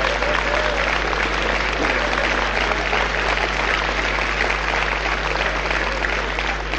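Live audience applauding, a dense, even clapping that holds steady throughout, with a low steady hum from the recording underneath.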